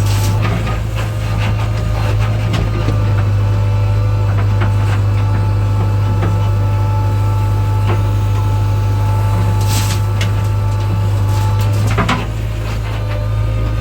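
Heavy machine engine, most likely a JCB backhoe loader's, running steadily with a strong low hum, under scattered clanks and knocks. A short hiss comes about ten seconds in and a sharp knock near the end.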